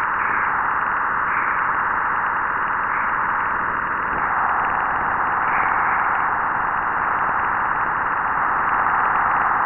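Juno spacecraft's Waves instrument electric-field data from Jupiter, played back as sound: a steady hiss in a band of fairly high pitch, with slight swells now and then. It is trapped continuum radiation inside Jupiter's magnetosphere, just after the spacecraft crossed the magnetopause.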